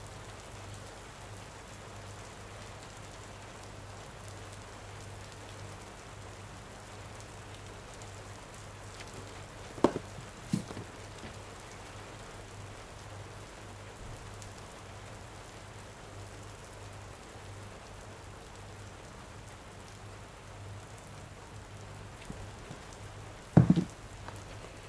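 Steady rain falling, with a low steady hum underneath. Two short knocks come about ten seconds in, and a louder one near the end.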